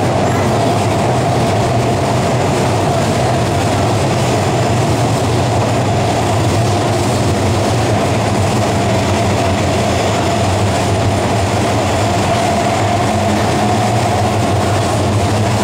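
Cabin noise inside a CSR Puzhen AC18 metro car running steadily: a constant rumble of wheels on rail with a steady tone above it.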